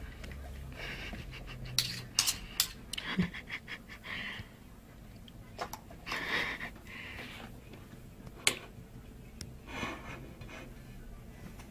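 Short breathy puffs of an animal breathing hard, a few seconds apart, with a quick run of sharp clicks about two to three seconds in.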